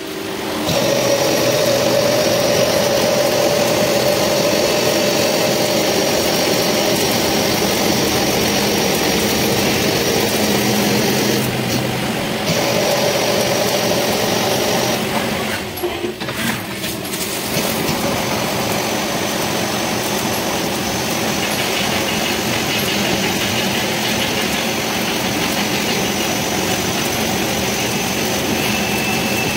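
CNC turning lathe running its program: the spindle spins a metal shaft while the turret tool cuts it and coolant pours onto the work, a loud steady machine noise with a few steady tones. The sound dips briefly about sixteen seconds in, then carries on.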